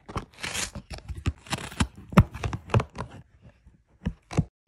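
A cat biting and tearing at the edge of a piece of cardboard with its teeth: irregular crunches and rips that thin out about three seconds in, with two sharp crunches near the end.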